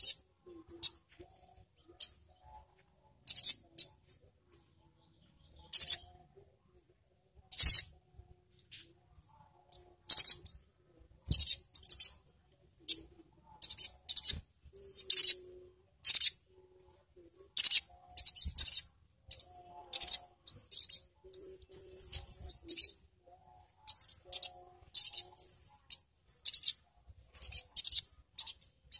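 Male olive-backed sunbird (sogok ontong) calling: short, sharp, very high-pitched chips and twitters, spaced out at first and then coming faster, in rapid runs over the second half.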